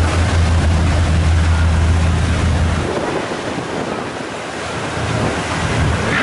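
Rough, choppy sea rushing and splashing around the boats, with wind buffeting the microphone. Under it a steady low boat engine hum that drops away about halfway through and returns faintly near the end.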